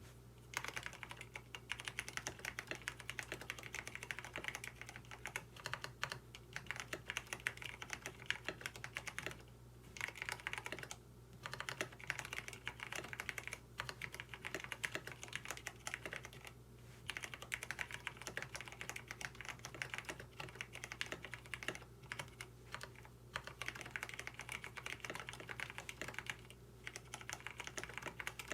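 Fast typing on a KBD67 Lite mechanical keyboard with lubed Cherry MX Brown tactile switches and a PE foam mod, in quick runs broken by short pauses. The switches have no switch films, and the owner finds them scratchy, with an annoying 'tic' rattle from housing wobble.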